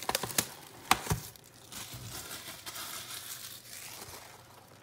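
Cellophane shrink-wrap being torn and crumpled off a trading-card box: sharp crackles and clicks in the first second or so, with a light knock, then a softer crinkling that fades away near the end.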